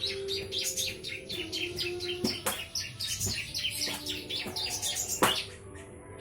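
Small birds chirping and twittering rapidly and continuously, several calls overlapping, with a couple of sharp clicks, the loudest about five seconds in.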